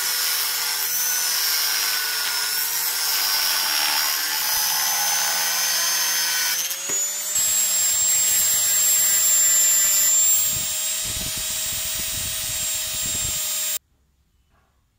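Angle grinder running under load, its cutting disc biting into a steel bar with a steady whine and a hiss. About seven seconds in, the whine steps up to a higher pitch as the grinder grinds a steel bar held against the disc. The sound cuts off abruptly near the end.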